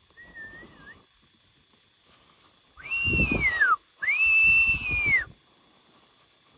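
A person whistling: a faint wavering note at the start, then two louder high whistles about a second apart, each held and then sliding down in pitch at the end.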